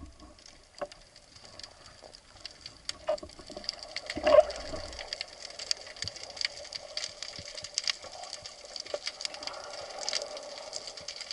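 Underwater ambience picked up by a diver's camera along a rocky reef: dense fine crackling and clicking over a steady hiss, with one brief louder bubbly burst about four seconds in. A faint steady hum builds near the end.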